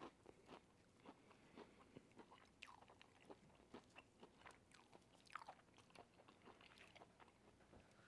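Faint chewing and crunching of crispy fried chicken: a scatter of small, quiet crisp clicks and mouth sounds.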